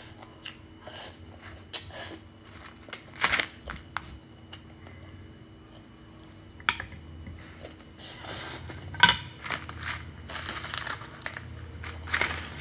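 A person eating instant noodles close to the microphone: noodles slurped off chopsticks and chewed, with irregular short crunches and clinks of chopsticks on the bowl. Near the end a crisp noodle piece is bitten.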